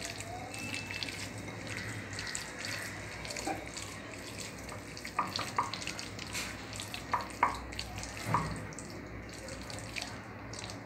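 Hand squeezing and mixing finely chopped raw green mango with salt in a glass bowl: wet, squishy rustling, with a few sharper clicks and taps in the second half.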